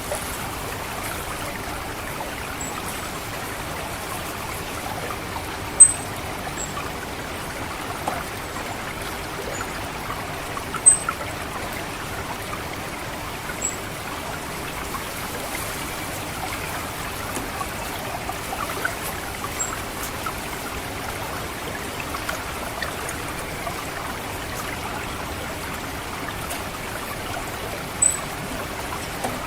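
Water trickling steadily through a rice paddy, with short, thin, high 'tsit' calls of an orange-headed thrush at irregular intervals, the loudest about six, eleven and twenty-eight seconds in.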